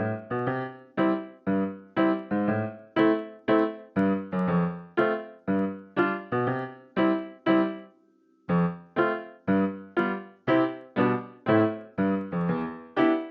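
Background piano music: a bouncy run of short, plucky keyboard notes at about two to three a second, breaking off briefly about eight seconds in before carrying on.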